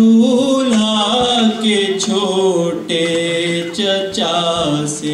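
A man's voice chanting an unaccompanied Urdu noha, a mourning lament, in long held notes that waver and slide, stepping down in pitch near the end.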